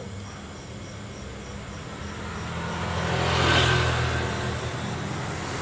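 A passing motor vehicle: a low rumble with a rushing noise that swells to a peak a little past halfway, then eases off.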